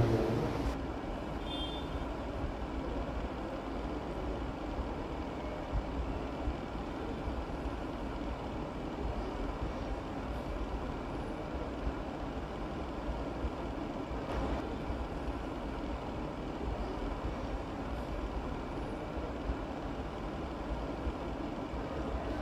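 Steady low rumble of background machinery running without a break, with a light knock about two-thirds of the way through.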